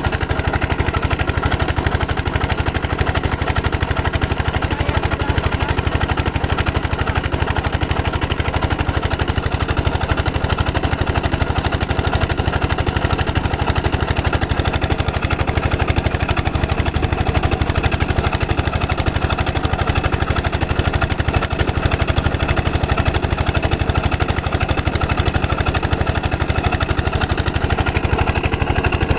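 Diesel engine water pumpset running steadily, with a rapid, even beat that holds the same speed throughout.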